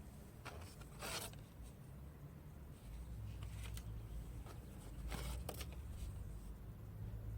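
Short scraping, rustling handling sounds, one about a second in and another about five seconds in, with a few faint clicks, over a low steady rumble.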